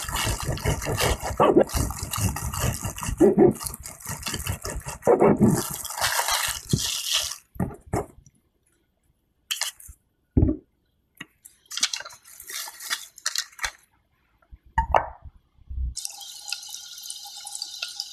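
A knife saws through stacked slices of soft white sandwich bread to trim off the crusts: a dense run of cutting strokes lasting about seven seconds. Then come scattered soft taps as bread pieces are set down on a baking tray. About two seconds before the end a steady hiss starts, from butter melting in a saucepan over a low gas flame.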